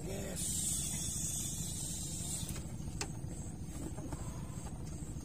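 Steady low motor drone with a fast pulsing texture. A hiss rises soon after the start and lasts about two seconds, and sharp clicks come about two and a half and three seconds in.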